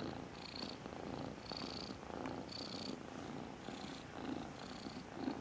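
Domestic cat purring steadily, swelling and fading in a regular cycle about once a second with its breathing.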